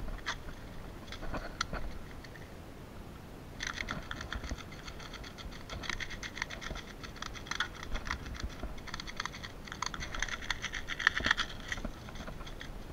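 Airsoft gear handled with gloved hands: a few scattered clicks, then from about three and a half seconds in a dense run of quick, irregular small plastic clicks and rattles.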